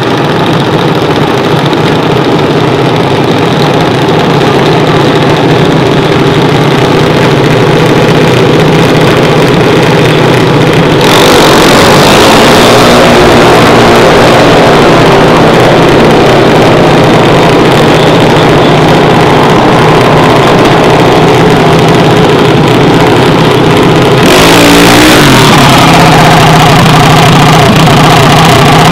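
Junior dragster's single-cylinder engine running steadily, its pitch wavering briefly a couple of times.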